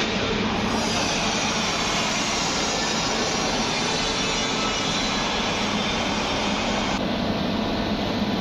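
Steady industrial machine noise with a low hum, from an automatic TIG welding machine running a pipe-to-flange seam and the shop around it.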